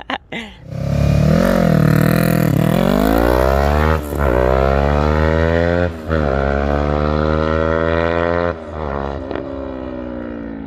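Yamaha R3's 321 cc parallel-twin engine revving for a launch, then accelerating hard, the pitch climbing through the gears with two quick upshifts about 4 and 6 seconds in. About 8.5 seconds in the engine note drops as the throttle comes off.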